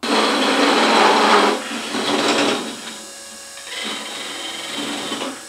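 Wood lathe running with something pressed against the spinning wooden workpiece: a rough scraping and rubbing that is loudest for the first second and a half, then quieter.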